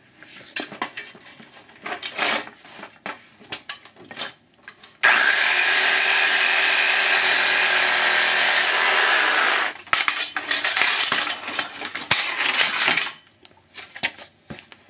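Clicks and rattles as an aluminum beach-chair frame is handled, then a power saw runs for about four and a half seconds, cutting at the chair's riveted joints, its whine falling as the trigger is released. More clattering of the metal frame follows.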